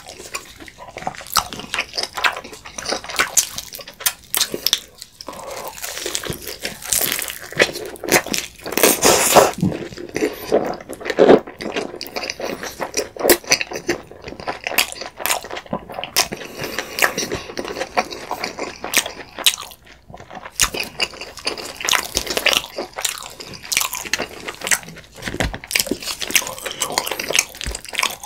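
Close-miked eating sounds: wet chewing and slurping of thick cream pasta, with bites of pizza. A dense run of sharp wet clicks and smacks.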